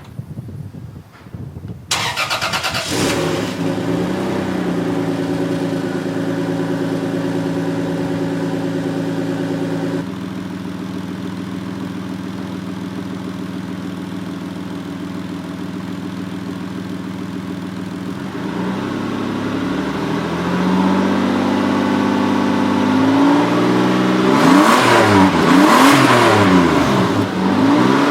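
Toyota Supra's 2JZ-GTE twin-turbo straight-six started about two seconds in, after a sharp click, then running at a raised idle that steps down to a steadier, lower idle about ten seconds in. From about twenty seconds it is revved, with several quick blips rising and falling near the end.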